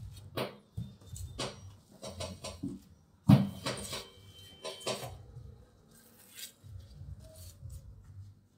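Plastic rolling pin rolling cracker dough flat under cling film: the film crinkles and crackles over a low rolling rumble, with one sharp knock about three seconds in.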